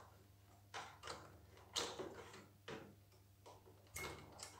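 A handful of light, irregular clicks and taps as pliers work the electric cable connectors off a pressure washer's induction motor.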